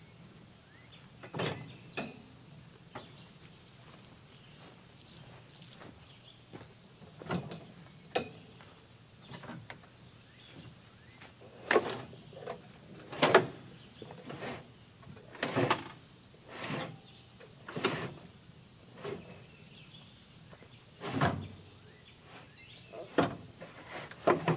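Irregular knocks, clunks and rattles from parts of a Kawasaki Mule Pro FXT's cargo bed being handled and moved, about a dozen in all, loudest around halfway through.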